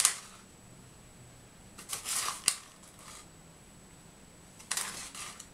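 A spoon scooping powdered sugar from a paper packet into a glass bowl of cream: three short bouts of rustling and scraping, with a sharp tap about two and a half seconds in.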